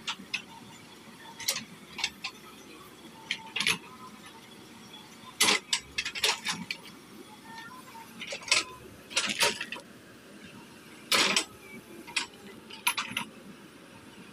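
JCB 3DX backhoe loader at work: sharp, irregular metallic clanks from its bucket and arm over a steady engine hum. The loudest clanks come about halfway through and again about three-quarters of the way through.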